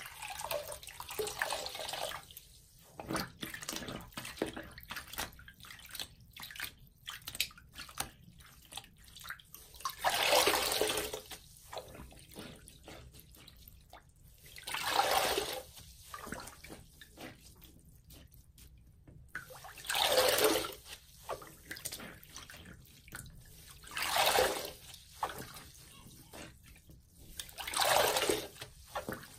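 A large water-soaked sponge being kneaded and squeezed in a basin of water, with small squelches and drips throughout. Five louder splashing gushes of wrung-out water come about every four to five seconds from about ten seconds in.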